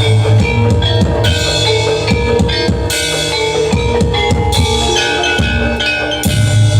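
Live Reog music: drums beaten in a quick, busy pattern over held, ringing pitched tones from the ensemble.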